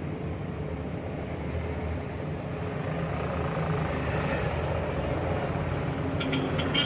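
Vehicle engine and road noise heard from inside the cab while driving: a steady drone that grows slightly louder partway through, with a few light clicks near the end.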